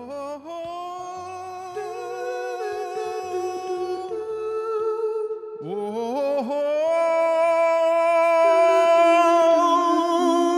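Long held sung or hummed notes with light music behind. One note is sustained for about five seconds, then the voice swoops up into a second long note that swells louder toward the end.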